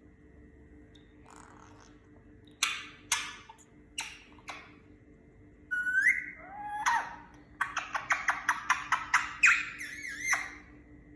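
Indian ringneck parakeet calling: a few sharp, clipped notes, then a rising call about six seconds in, followed by a fast run of short sharp notes, about five a second, that stops about ten seconds in.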